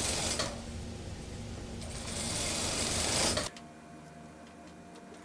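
Industrial lockstitch sewing machine running as it stitches a suit sleeve into the armhole, getting louder briefly before it stops abruptly about three and a half seconds in.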